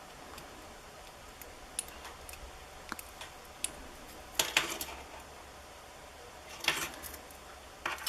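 Light clicks and small metallic clinks from handling a wristwatch and its small metal parts, with two short, louder clattering clinks, one about halfway through and one near the end.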